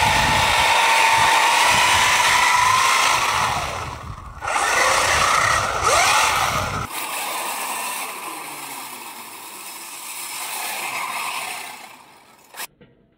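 Electric RC short-course truck's motor whining as it drives and slides on lake ice, its pitch rising and falling with the throttle. The sound breaks off abruptly twice, at about four and seven seconds, and is quieter after the second break.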